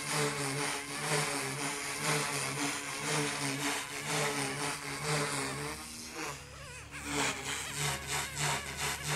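Goosky S2 electric RC helicopter in flight, its rotor and motor making a steady, pulsing whir with the motor on a flat 65% throttle setting. The sound fades briefly about six seconds in and comes back.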